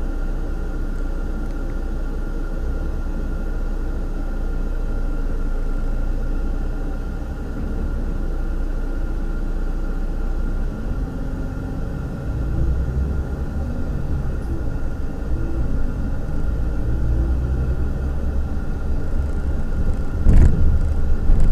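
Coach's diesel engine idling with a steady low rumble, then pulling harder as the coach moves off about halfway through, its note rising. A sharp thump near the end is the loudest sound.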